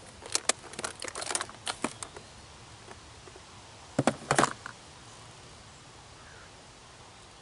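Light clicks and rattles of fishing tackle being handled and put away, with a second short burst of clatter about four seconds in.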